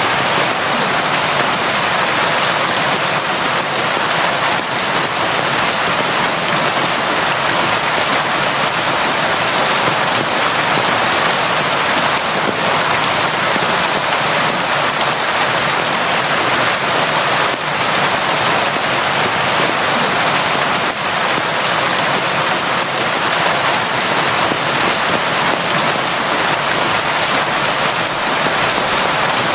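Steady, heavy rain falling without let-up: a dense, even hiss of countless drops.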